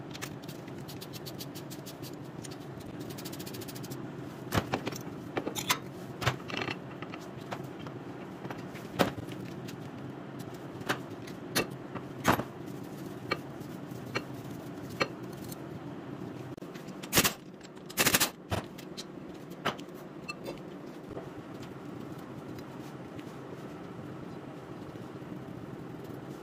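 Metal brake parts and hand tools being handled as a front brake caliper and disc are taken off: scattered clicks, clinks and knocks over a steady background hum. A quick run of rapid clicks comes a couple of seconds in, and the loudest clanks come about two-thirds of the way through.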